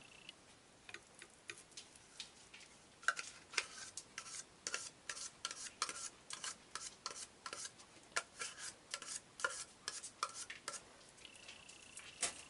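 Metal spoon stirring thick soap batter in a glass measuring cup, clinking against the glass about two or three times a second while mixing mica colorant into the batter. The clinks are faint at first and grow stronger a few seconds in.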